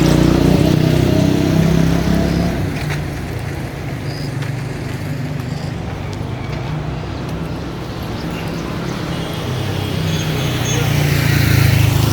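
Motor vehicle engine hum on a road, loud at the start, fading after a couple of seconds, then swelling again near the end.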